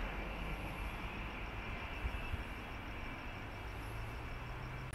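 Steady low outdoor rumble with a faint, high, fast ticking of about five beats a second.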